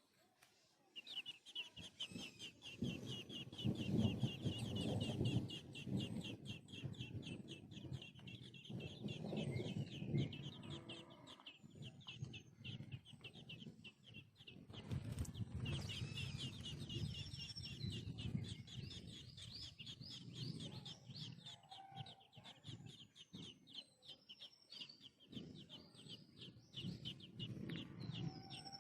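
House sparrow chick begging to be fed: a rapid, continuous run of short high chirps starting about a second in, over a low rumbling noise.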